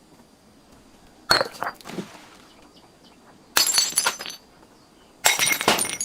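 Glass breaking in three crashes, each a sharp smash with a short crackle of shards, about two seconds apart.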